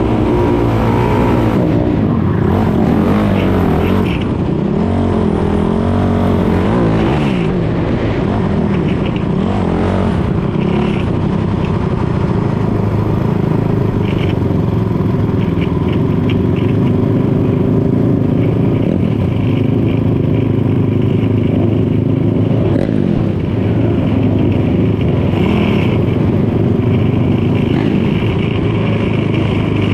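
Sport ATV's 450cc single-cylinder four-stroke engine racing, heard from its own handlebars, the revs rising and falling again and again through the turns in the first ten seconds, then holding steadier on the throttle.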